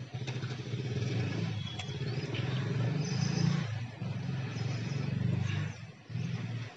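An engine running with a steady, low, fast-pulsing drone that cuts out briefly about six seconds in, then resumes for a moment.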